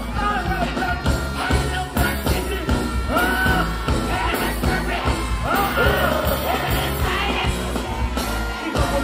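Loud live music over a stage sound system: a heavy, steady bass beat with a singing voice held on long, swooping notes over it.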